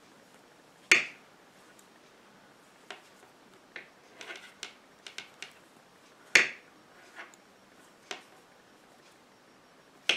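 Metal knitting needles clicking against each other as stitches are worked: three sharp clicks, about a second in, just past six seconds and near the end, with softer ticks in between.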